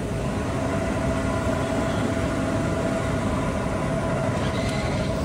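Petrol pump dispenser running steadily while petrol flows through the nozzle into a motorcycle's fuel tank, with a faint steady whine.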